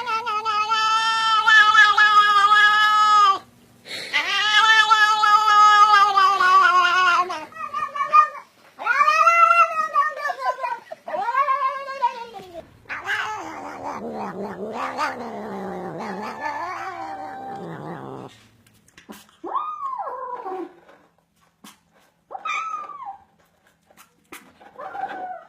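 A cat yowling: two long drawn-out wails of about three and a half seconds each, then several shorter yowls that rise and fall in pitch. After those comes a lower, rougher wavering yowl lasting about five seconds, and a few brief calls near the end.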